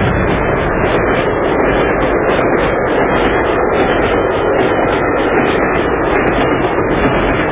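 Train running: a steady rumble with a rhythmic clatter about three times a second.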